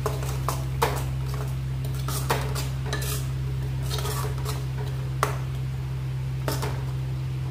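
Steel spoon stirring and scraping thick masala paste in a metal kadhai, with irregular clinks of the spoon against the pan, over a steady low hum.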